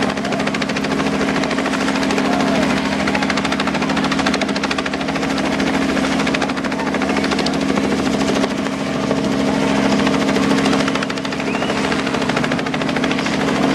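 Small helicopter hovering, its rotor beating fast and evenly over a steady engine drone.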